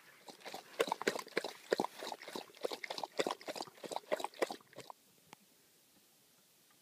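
German shorthaired pointer lapping water from a plastic bag, a quick run of wet laps several a second that stops abruptly near the end.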